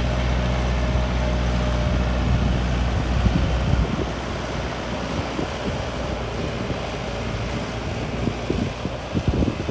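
Yanmar EF725T tractor's diesel engine running steadily, its hum fading out about three to four seconds in. After that, wind noise on the microphone with irregular low thumps that grow more frequent near the end.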